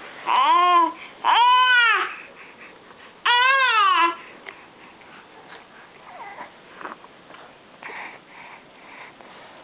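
A baby making three loud, high vocal cries or squeals in the first four seconds, each rising and then falling in pitch, followed by quieter babbling.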